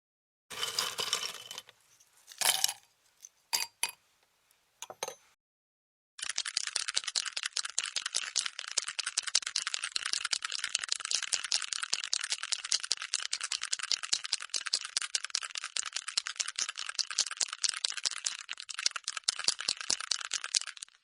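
A few short bursts of ice cubes clinking and rattling against glass, then, about six seconds in, a long, dense, rapid rattle of many ice cubes shaken in a container that runs until it stops near the end.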